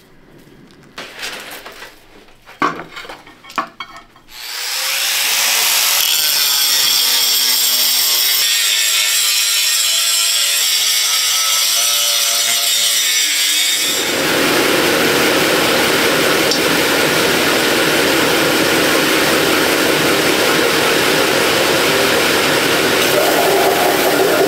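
A few knocks as a Damascus steel hatchet head is handled and clamped in a vise. About four seconds in, an angle grinder spins up and grinds the steel, its pitch wavering under load. About halfway through, it gives way abruptly to the steady, denser rush of a belt grinder grinding the hatchet.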